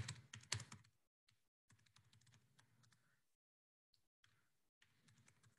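Faint typing on a computer keyboard. A quick run of key clicks comes in the first second, then sparser, fainter taps, with the sound cutting in and out abruptly as it comes over a video call.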